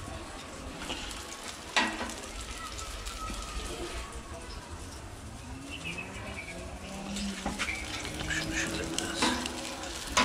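Meat and dripping fat sizzling on a smokeless charcoal grill, with a sharp clack about two seconds in and light clicks of tongs and plates.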